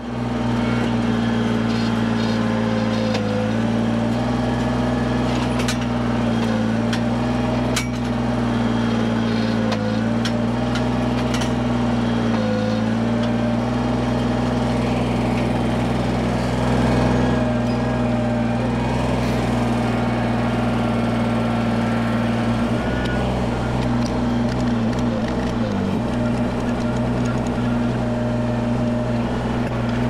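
Engine of a heavy machine running steadily, its pitch sagging briefly every few seconds as it takes load and settling lower once, late on.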